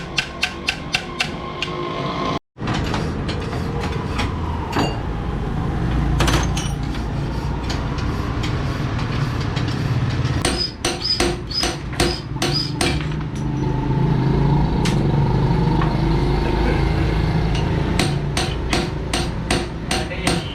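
Hammer blows in quick runs of about four strikes a second, over a steady machinery hum, during sewing-machine repair work.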